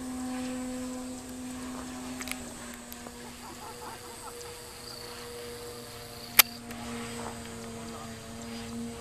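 A steady low drone with evenly spaced overtones, dipping slightly in pitch a couple of seconds in. A single sharp click comes about six and a half seconds in.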